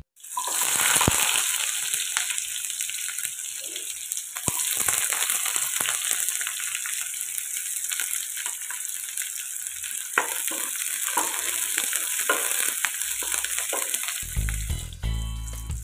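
Onion pieces frying in hot oil in a non-stick wok. The sizzle starts suddenly as they hit the oil and carries on steadily, with a wooden spatula scraping and clicking against the pan as they are stirred.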